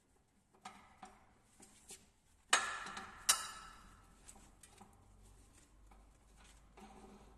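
Steel mold parts and tools being handled during disassembly: light metallic clicks, then two sharp metal clanks with a brief ring, about two and a half and three and a quarter seconds in, followed by faint small clicks.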